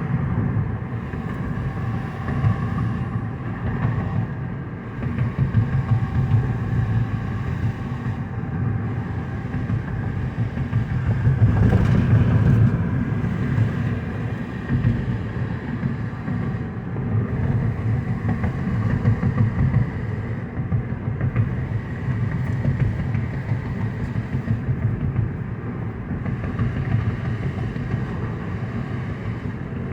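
2009 Mazda 5 driving on city streets, heard from inside the cabin: a steady engine and road rumble, louder for a couple of seconds around twelve seconds in. The car is being driven with its automatic transmission freshly repaired, shifting smoothly.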